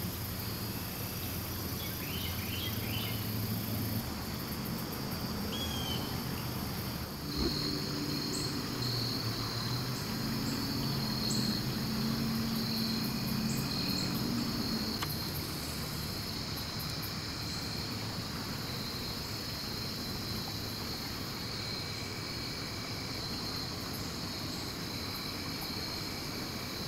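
Crickets and other insects chirping steadily in a continuous high-pitched chorus over a low drone. A few brief bird chirps come in the first seconds, and there is a single knock about seven seconds in.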